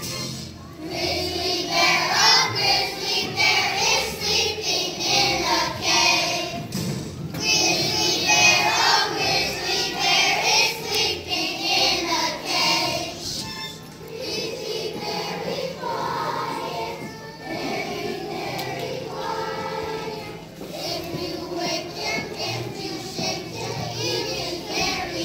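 A large choir of young children singing together, starting about a second in, with short breaks between phrases.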